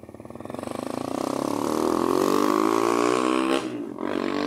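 A motor vehicle's engine approaching and passing close by. It grows louder over the first two seconds and its pitch slides down as it goes past, with a short break about three and a half seconds in.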